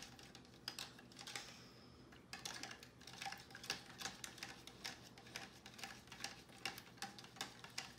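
A spoon stirring sugar water in a plastic cup, ticking against the cup about two or three times a second, steadier from about two seconds in. The sugar has dissolved: no granules are heard grating in the cup.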